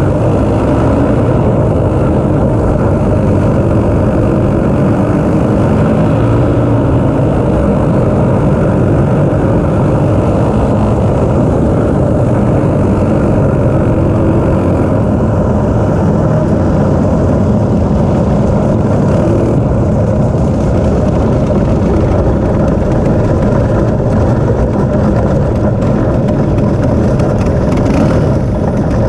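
Dirt-track racing go kart's engine running hard, heard loud and steady from on board the kart, with the level dipping slightly near the end as the kart comes off the track.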